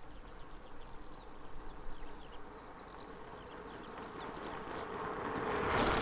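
Faint, rapid high-pitched chirping in open country, with a breeze building into wind noise on the microphone over the last couple of seconds.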